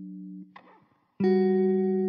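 Background music on guitar: a held note fades out, there is a short gap, and then a new note is plucked about a second in and rings on loudly.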